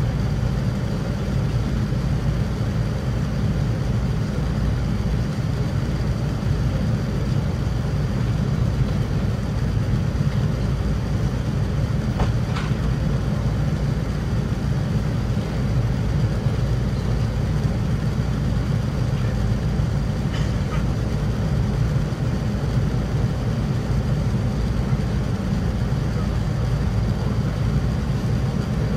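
Steady in-flight cabin noise of a Boeing 787-9 airliner on descent: an even, low rush of airflow and engine, with a couple of faint clicks.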